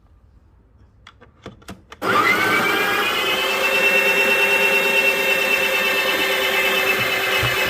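A few light clicks, then the Breville Barista Pro's built-in burr grinder starts about two seconds in. Its motor whine rises briefly and then runs steadily as it grinds out the last beans left in the burrs.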